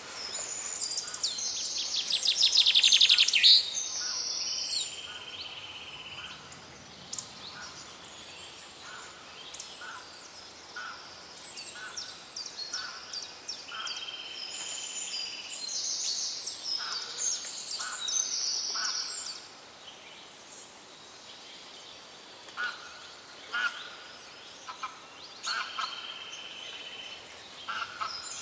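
Many birds chirping and singing with short high calls and trills, the loudest a rapid trill about two to three seconds in.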